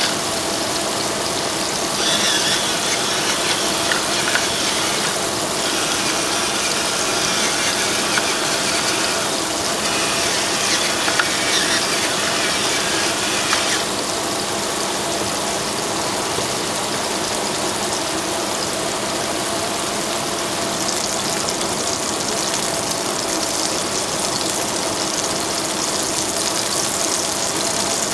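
Beef patties sizzling steadily in oil in a frying pan, with a pepper grinder cranked over them, a gritty ratcheting grind, until about halfway through.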